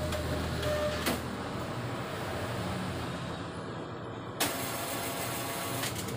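Canon imageRUNNER Advance 6075 office copier running with a steady hum, a sharp click about a second in, and a louder rush of mechanical noise that starts suddenly about four seconds in.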